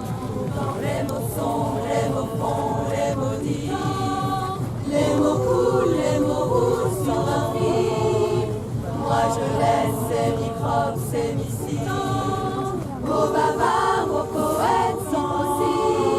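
Choir singing, several voices in harmony with long held notes.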